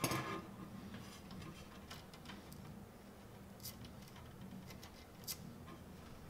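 Handling of a small right-angle corner clamp being tightened onto styrene model walls: a brief rustle at the start, then a few faint, scattered small clicks, over a faint steady hum.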